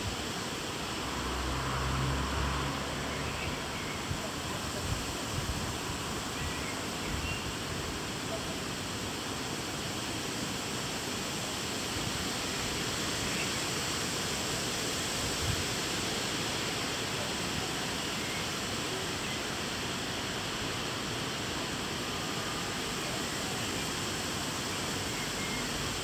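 Steady rushing noise of stormy weather outdoors, with a brief low rumble about two seconds in.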